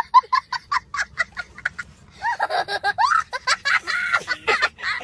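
A small child laughing hard: quick bursts of giggling, about five a second, then from about two seconds in, long high-pitched squealing laughs that rise and fall.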